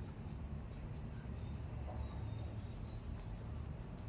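Duck curry simmering in a pan on a clay stove, heard as a low, steady rumble.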